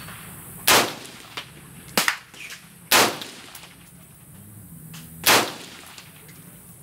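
Semi-automatic AR-15 with a 20-inch M16 upper firing 5.56 mm rounds: four single shots at uneven intervals, the last after a longer pause of about two seconds.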